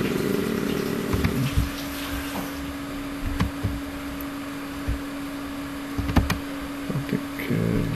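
Steady electrical hum with a few sharp computer mouse clicks as a folder and file are clicked open.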